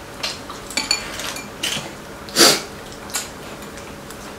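Metal chopsticks clicking against ceramic bowls and plates as people eat, a handful of light clinks with one louder knock about two and a half seconds in.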